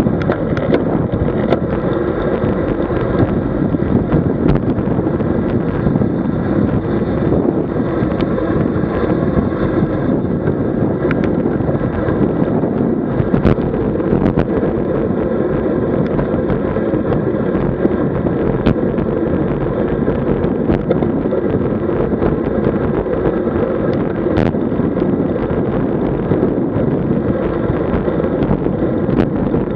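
Wind rushing over the camera microphone of a road bike in motion, a loud steady rush with a low rumble from the road beneath it. A few faint clicks or knocks come through it now and then.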